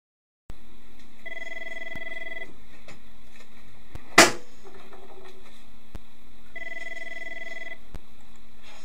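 A telephone ringing twice, each ring a warbling tone of about a second, some five seconds apart, over a steady hum. A sharp knock about four seconds in is the loudest sound.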